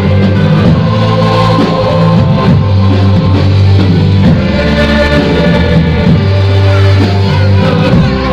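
Loud band music with guitar and drums, sustained chords playing without a break.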